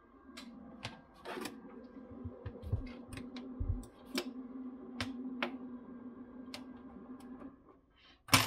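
Steady hum from a Wanbo X5 projector while it is handled, with a string of light clicks and knocks from its plastic casing being moved about. The hum stops a little before the end, and one loud sharp click follows.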